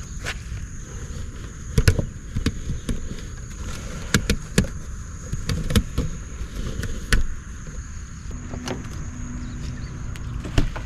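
Plastic air-conditioner exhaust ducts being pulled out of their ports in a camper window panel and handled: a series of irregular sharp knocks, clicks and scrapes.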